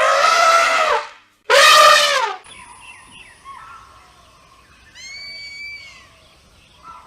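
Wild elephant trumpeting: two loud, harsh blasts of about a second each in the first couple of seconds, the second falling in pitch at its end. Faint birdsong follows, with one clear whistled bird call about five seconds in.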